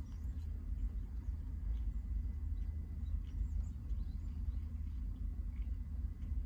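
A person chewing a mouthful of sandwich with the mouth closed, faint irregular wet clicks, over a steady low rumble inside a car's cabin.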